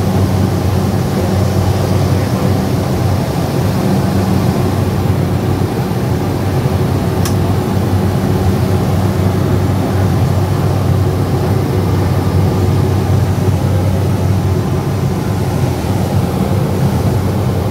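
Steady drone of a Cessna Caravan's turboprop engine and propeller in flight, heard inside the cockpit: a low hum of even pitch under a constant rushing noise.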